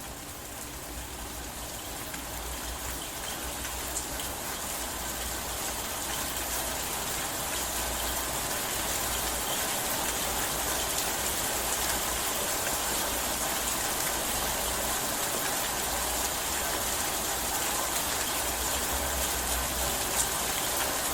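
Steady rainfall, a dense even patter of raindrops that gradually grows louder over the first several seconds and then holds steady.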